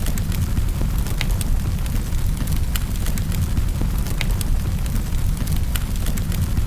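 Wood fire burning in a fireplace: a steady low rumble of the flames with sharp, irregular crackles and pops from the logs.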